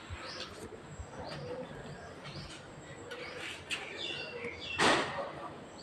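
Birds chirping repeatedly in short calls, with a brief louder rustle just before the end.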